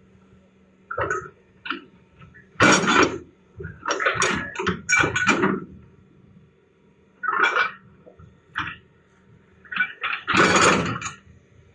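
Excavator at work: a faint steady engine hum with irregular noisy bursts of half a second to a second each, the longest about three seconds in, between four and five and a half seconds, and about ten and a half seconds in.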